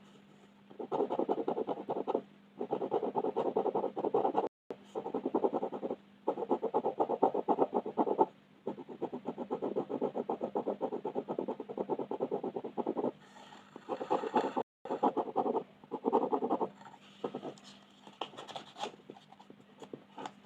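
Coloring on paper at close range: rapid back-and-forth scratchy strokes in runs of one to two seconds, with short pauses between them, over a faint steady hum.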